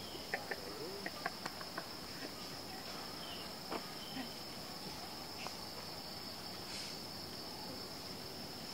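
Insects chirring in a steady high drone, with a few faint snaps and clicks in the first couple of seconds.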